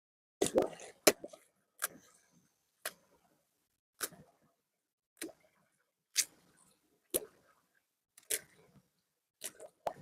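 A series of sharp clicks or knocks, roughly one a second and unevenly spaced, with a couple of closer pairs.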